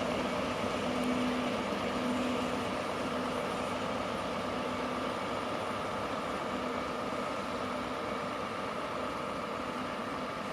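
Steady hum and rumble of a train heard from inside the carriage, with a faint steady tone running through it.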